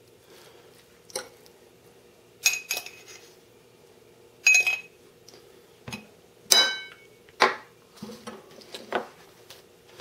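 Ceramic microwave egg-cooker pot clinking and knocking as a utensil scrapes and taps the cooked eggs out of it and the pot is handled: about seven short separate clinks. The loudest comes about six and a half seconds in and rings briefly.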